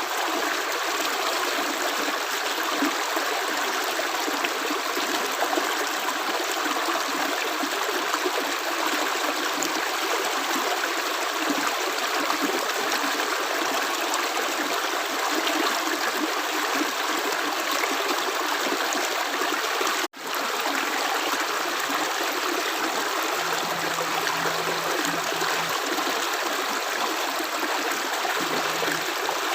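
Running water of a stream, a steady even rush with no separate drips. About two-thirds of the way through it cuts out for a split second and comes straight back.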